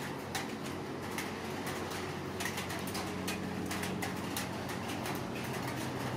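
Light, irregular clicks and ticks from hands and a comb working through a dog's fur to pick off ticks, over a steady low hum.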